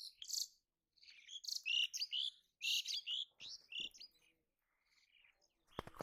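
Small birds chirping in a run of short, high calls, busiest in the first half and fading after, with a sharp click near the end.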